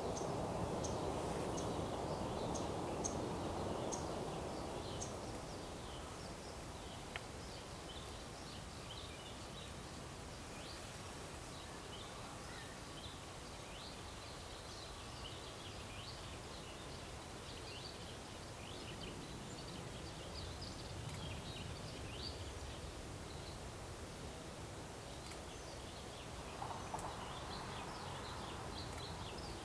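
Small songbirds chirping, many short high calls scattered throughout, over a steady low background rumble that is louder for the first few seconds. A brief lower sound with a couple of clicks comes near the end.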